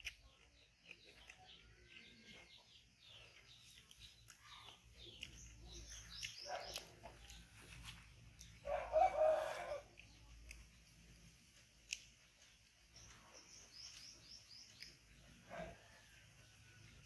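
A rooster crows once, about a second long, midway through, over small birds chirping on and off.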